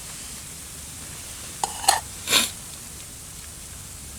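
An eating utensil clinking twice against a metal camping cook pot, then a short scrape, over a steady hiss.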